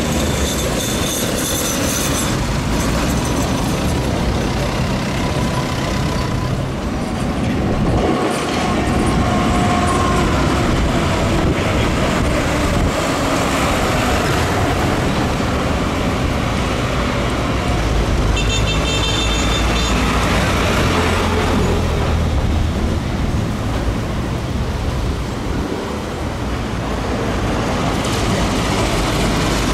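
Street traffic with trams running on street track: a steady mix of road-vehicle and tram running noise, with a brief high-pitched tone about eighteen seconds in.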